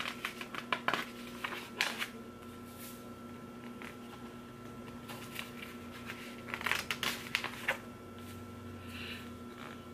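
Glossy magazine pages being handled and turned: a few short rustles and soft taps scattered through, over a steady faint hum.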